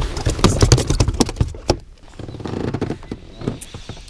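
Freshly caught small zander flapping, a rapid run of slaps and knocks that is dense for the first couple of seconds and then thins to a few scattered knocks.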